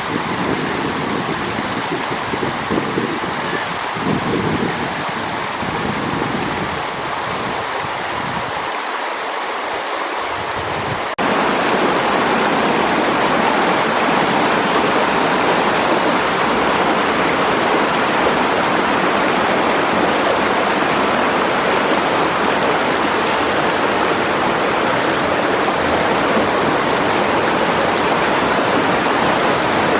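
Water of a canyon stream rushing steadily. For the first 11 seconds or so low buffeting comes and goes under it; then it cuts abruptly to a louder, fuller, even rush of water.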